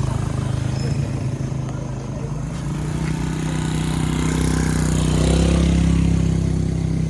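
Motorcycle engine running under way, its note stepping up about two and a half seconds in and loudest around five to six seconds in.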